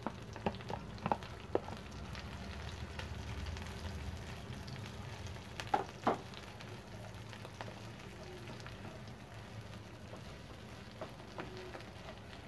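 Grated boiled potato sizzling softly in hot ghee in a non-stick pan on low heat, with a spatula scraping and tapping as it is stirred; a few sharp taps in the first second or so and two louder ones about six seconds in.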